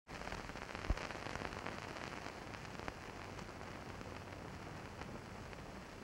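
Hiss and crackle of an old 1940s film soundtrack, with scattered clicks and pops (a sharp one about a second in) over a faint steady low hum.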